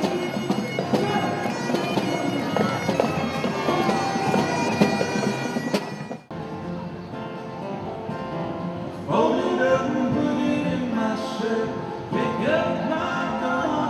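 Music with bagpipes playing. It cuts off abruptly about six seconds in, and different music follows.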